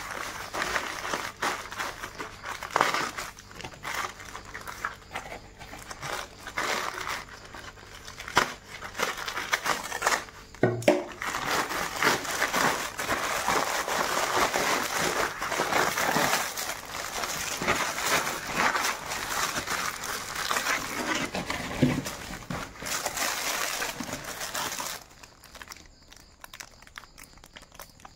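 Plastic courier mailer bag crinkling and rustling as it is handled and opened, with many sharp crackles; the crinkling stops about three seconds before the end.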